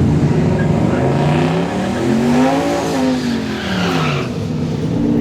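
Car engine running, its pitch rising to a peak about halfway through and then falling back, with a hiss of tyre noise alongside.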